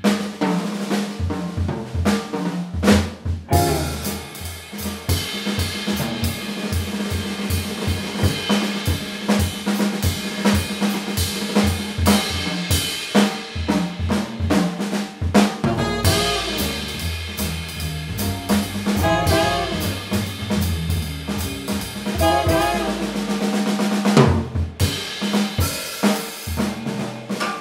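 Jazz drummer playing a busy solo on a drum kit: quick snare strokes and rolls, rimshots and bass drum under a wash of ride cymbal.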